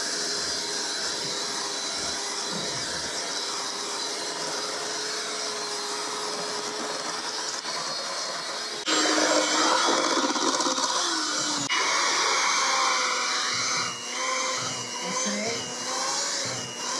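Electric hand mixer beating thick sucre à la crème: the motor runs steadily, then gets louder about nine seconds in, its pitch sagging and wavering as it labours in a mixture that has grown too thick for it.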